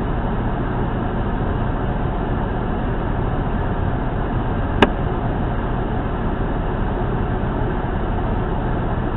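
Steady rumbling noise with a faint low hum, and one sharp click about five seconds in.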